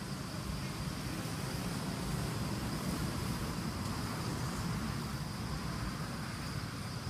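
Steady outdoor background noise: a low rumble under an even hiss, with a thin steady high-pitched tone throughout.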